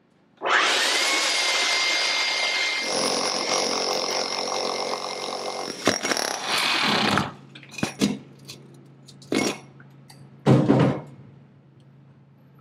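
Corded power drill cutting a 3-inch hole through the wall with a hole saw. It spins up about half a second in and runs with a steady whine for about seven seconds, then gives three short bursts near the end.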